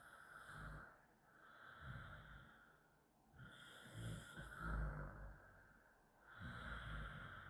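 A person snoring, one snore about every two and a half to three seconds. Each snore swells and fades over a second or two with a fluttering low rattle.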